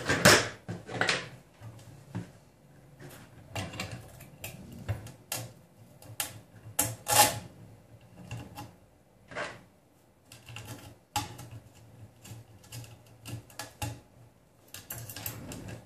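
Irregular clicks, taps and clatter of small metal hardware handled by hand: mounting bolts and springs being fitted into the corners of a PCB heatbed. The loudest knocks come about a second in and again about seven seconds in.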